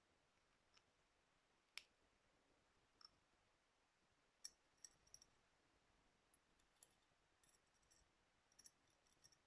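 Near silence broken by faint, scattered light clicks and taps, about a dozen, irregularly spaced.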